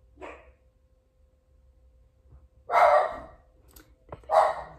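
Dogs barking: two loud barks about a second and a half apart, after a short, softer sound near the start.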